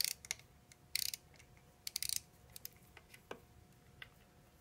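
Hand tools and a small threaded metal plug being handled: scattered light metallic clicks, with short runs of rapid clicking about one and two seconds in and a single knock a little after three seconds.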